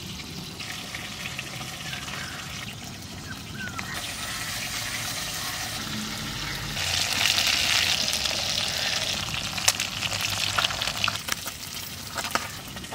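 Boiled potatoes being squeezed and mashed by hand in a bowl: soft, wet squishing with small clicks of fingers against the bowl, louder for a couple of seconds about seven seconds in.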